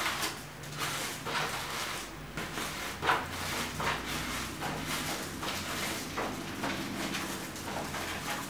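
Paper rustling and sliding in a series of short pulls as a long coloured paper streamer is drawn out through a slit in a sheet of paper.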